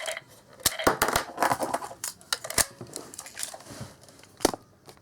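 Sharp plastic clicks and rattles from a Kyoryuger Deinochaser toy and its Jyudenchi battery being handled. The clicks come thickly in the first three seconds, with one more sharp click near the end.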